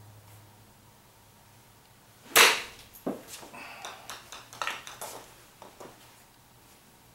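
A golf club strikes a ball off a hitting mat with one sharp crack a little over two seconds in, followed by a scatter of smaller clicks and knocks over the next few seconds.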